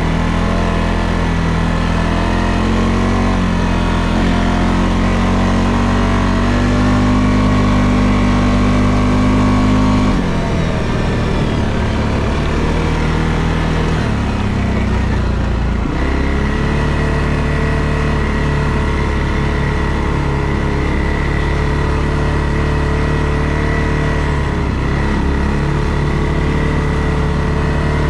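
2022 CFMOTO CForce 600 ATV's single-cylinder engine running under way, its pitch climbing slowly, then dropping off about a third of the way in as the throttle eases, before picking up again and holding steady for the rest.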